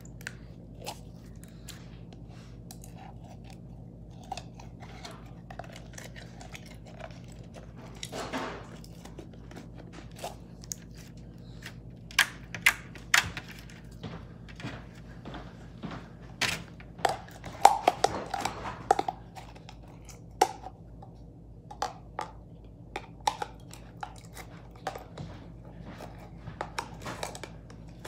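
Slime being squeezed and pulled out of a plastic tub onto a metal baking tray, making scattered small sticky crackles and pops that come thickest in the middle.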